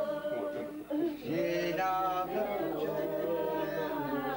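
Unaccompanied singing voices with long held notes.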